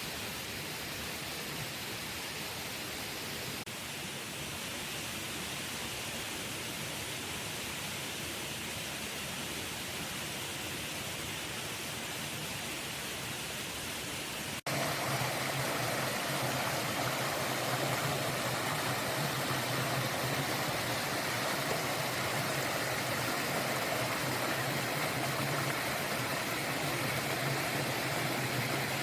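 Steady rushing of a forest stream. About halfway through there is a sudden cut to a louder, fuller stretch of running water.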